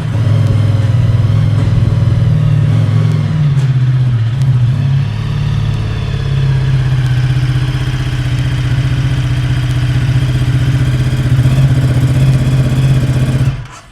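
Ducati Multistrada 1260's V-twin engine running loud and steady, its pitch wavering for the first few seconds and then holding even, before it cuts off suddenly near the end.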